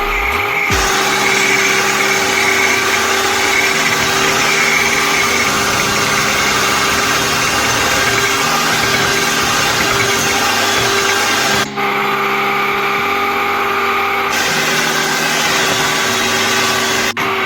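Electric mixer running steadily at high speed, whipping egg whites, with two brief breaks.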